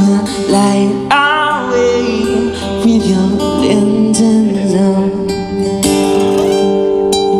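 Live slow song: a man singing into a microphone over plucked-string accompaniment. His voice drops out about five seconds in, leaving the plucked notes ringing on.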